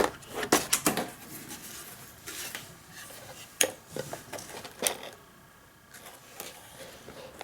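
Handling noise: scattered light clicks and knocks of small hard objects being picked up and set down, with a faint rubbing between them.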